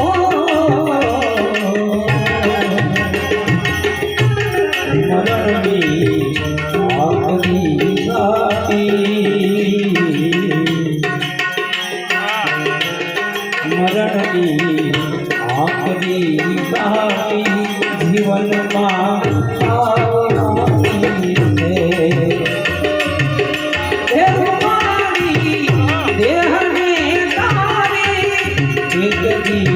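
Gujarati santvani devotional music: tabla keeps a steady rhythm under a moving melody line, with no words.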